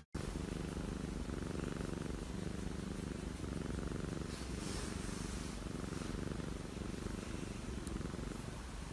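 Domestic cat purring steadily as its cheek is scratched.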